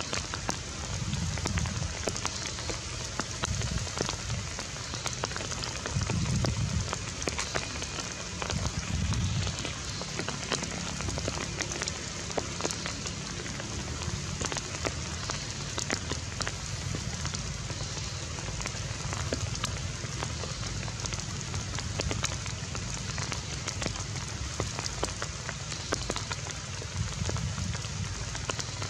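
Steady rain falling, with many separate drops heard as sharp ticks, and a few low rumbles.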